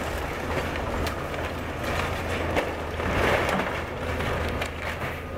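Tracked excavator's diesel engine running steadily as it tears into a wood-frame house, with a few sharp cracks and a crunching swell about three seconds in as framing and siding break.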